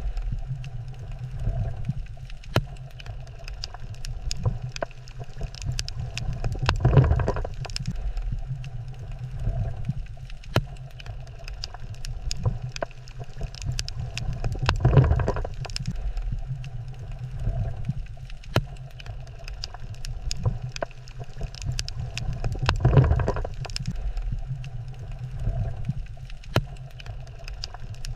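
Water ambience with a steady low rumble and scattered sharp clicks, swelling louder with a gurgling surge about every eight seconds. The same few seconds repeat in a loop.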